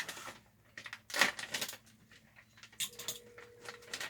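Hands unpacking and handling a carbon-fibre metal detector shaft: packaging rustling and scattered light clicks, with one sharp knock about a second in.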